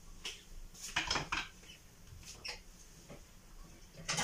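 Kitchen utensils and cookware clinking: a few scattered light taps and knocks, with a small cluster about a second in and a louder one near the end.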